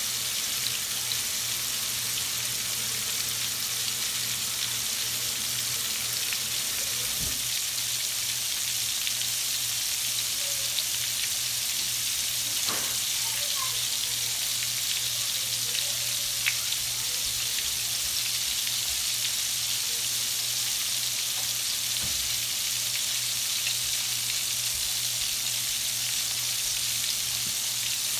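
Flour-coated shrimp frying in hot oil: a steady, even sizzle, with a few small ticks scattered through it.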